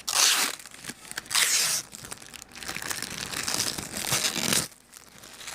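Protective plastic film being peeled off plexiglass covers, tearing and crinkling. Two loud rips in the first two seconds, then a longer, quieter peel that stops near the end.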